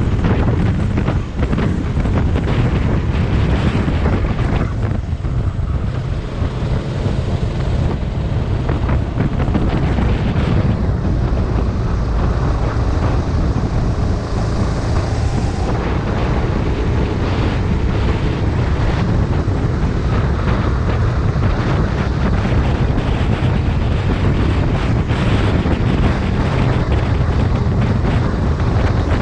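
Rental kart engine running at racing speed, with heavy wind buffeting on the microphone.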